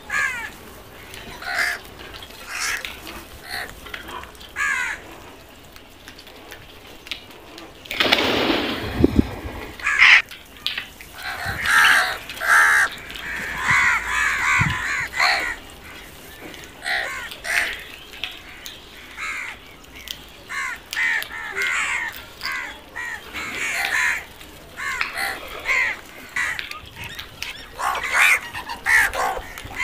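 A flock of house crows cawing, many short calls overlapping and repeating, with a loud burst about eight seconds in.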